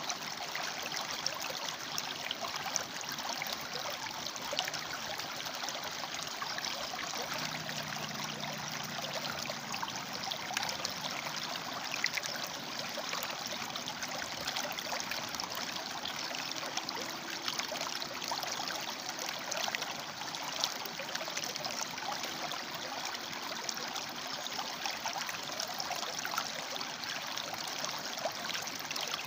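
A shallow river running over and between rocks: a steady rush of water with many small splashes and trickles.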